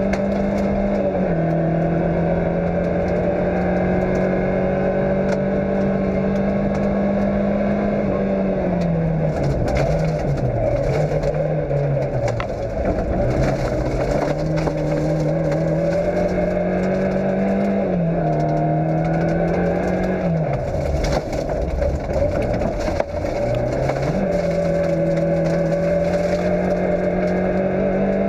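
Fiat Cinquecento rally car's engine pulling hard at steady high revs, with the revs dropping away and climbing again twice, once about a third of the way through and again about two-thirds through.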